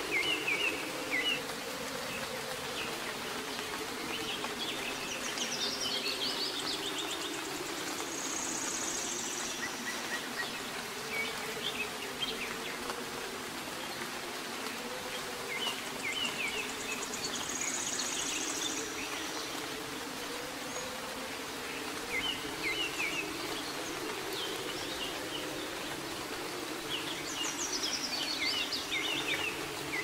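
Steady soft rain with a low buzz that wavers in pitch underneath, and bird chirps in short runs every few seconds.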